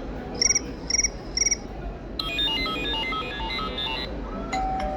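iPhone ringtone previews from the phone's speaker: three short trilled chirps about half a second apart, then a quick run of electronic beeps in a stepped melody, then another tone starting near the end.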